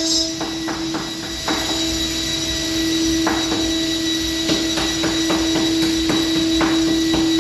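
CNC engraving machine cutting: a steady spindle whine with irregular sharp ticks and knocks as the bit works the material.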